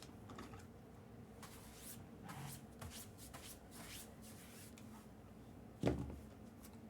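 Trading cards being handled and slid against each other, a run of soft rustles and swishes, followed just before the end by a single thump as something is set down on the table.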